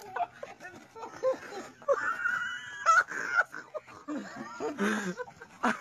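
People laughing and shouting, with a high held cry about two seconds in and a sharp knock near the end.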